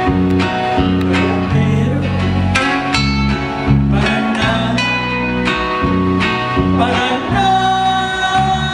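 A song with plucked-guitar accompaniment over a steady bass line, with singing that holds a long note near the end.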